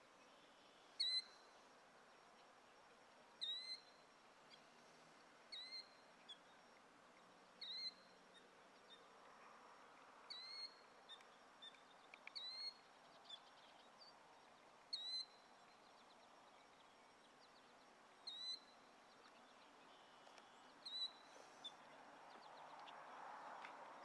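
Adult killdeer calling repeatedly: a short, high, sharp call about every two to three seconds, around ten in all. A faint rush of background noise swells near the end.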